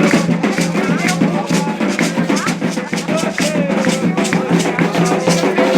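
Candomblé ceremonial music for Xangô: a steady rhythm of drums and rattles with voices chanting over it.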